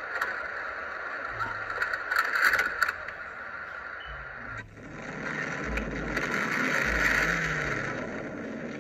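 Car driving noise recorded by a dashcam from inside a moving car, a steady rushing noise that swells twice, with a few clicks about two to three seconds in and a low rumble building about five to eight seconds in.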